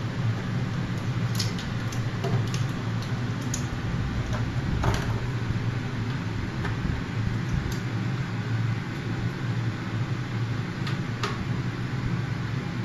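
Scattered small sharp clicks of a screwdriver and tiny screws on a 2.5-inch hard drive's metal case, mostly in the first few seconds and again twice near the end, over a steady low hum.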